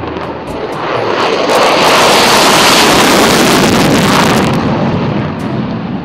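F-16 fighter jet taking off on afterburner: a jet engine's loud rushing noise that swells over the first couple of seconds, is loudest through the middle and fades near the end.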